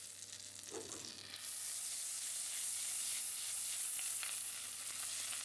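Butter sizzling in a frying pan with crushed garlic and ginger frying in it: a steady hiss that grows a little louder after about a second.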